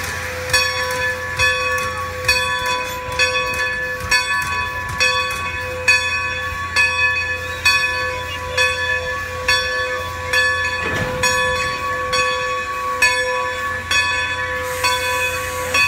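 Steam locomotive bell on Strasburg Rail Road No. 90 ringing steadily, about three strikes every two seconds, over a low steady hum. About a second before the end, a hiss of steam starts up.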